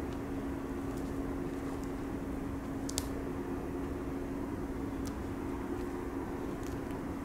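A steady low mechanical drone with a held tone, like a distant engine, runs throughout. Over it come a few footsteps and twig snaps on the forest floor, the sharpest about three seconds in.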